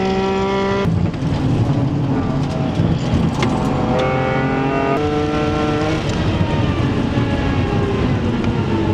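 BMW Z4 M Coupé's 3.2-litre straight-six heard from inside the cabin at speed on track. It lets off about a second in, then pulls hard with rising pitch and drops at an upshift about five seconds in, over heavy road and wind noise.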